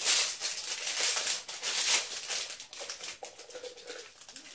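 Plastic packaging crinkling and rustling as a small sachet is handled and unwrapped by hand, loudest in the first couple of seconds and dying down toward the end.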